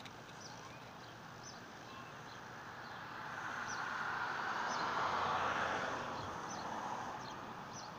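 A car passing on the street: its tyre and engine noise swells to a peak about five seconds in, then fades away.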